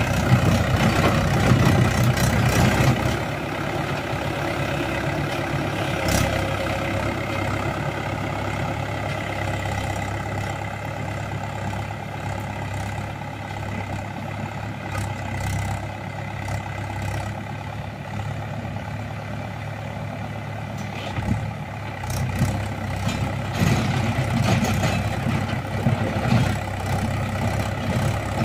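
Mahindra Sarpanch tractor's diesel engine running steadily under load as it drives a Shaktiman rotavator through dry soil. It is loudest over the first few seconds and again near the end, when the tractor is closer, and quieter in between as it moves away.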